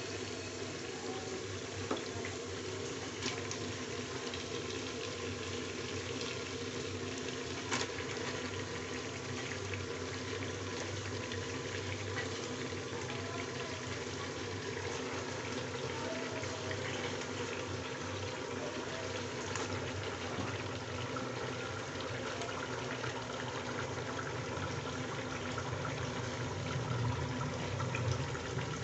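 Raw mutton pieces sizzling steadily as they fry in hot oil and onions in an aluminium pressure cooker. A few sharp clicks come in the first eight seconds as more pieces go in.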